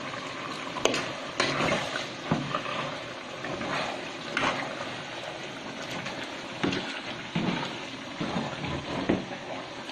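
Jackfruit cooking in coconut milk in an aluminium pot, stirred with a metal spoon: a steady liquid bubbling and sloshing, with several sharp clinks of the spoon against the pot.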